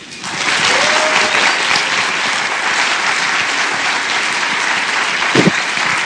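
Audience applauding, swelling up within about half a second and then holding steady.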